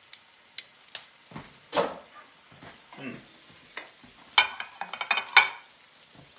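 Metal kitchen tongs clicking and tapping as pasta is lifted from a plastic colander onto a plate, then a quick cluster of louder metal clanks with a brief ringing from a skillet and utensils being handled on the stove about four and a half seconds in.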